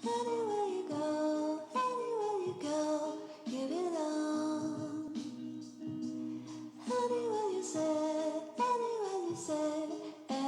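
Background music: a slow melody with sliding, falling phrases sung by a woman's voice over sustained accompaniment.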